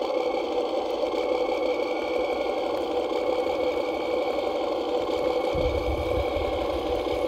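Drivetrain of a Cross RC KrAZ 260 6x6 radio-controlled truck running at a slow, steady crawl, with a steady whine from the motor and gears. A low rumble joins about five and a half seconds in.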